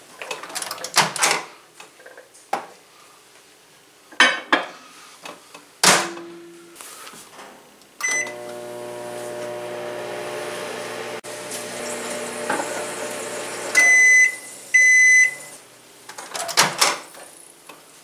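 Rival countertop microwave being worked: clunks and clicks as the door is shut and the keypad pressed, a short beep, then the oven running with a steady hum for about six seconds. The hum stops, two long beeps sound, and the door is clunked open near the end.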